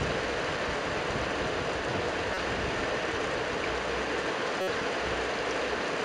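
Steady rain falling, an even rushing hiss with no breaks.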